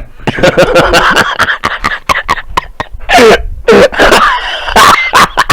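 A man hiccuping loudly with throaty, cough-like vocal noises: a run of voice sounds, then several abrupt loud hiccup bursts in the second half.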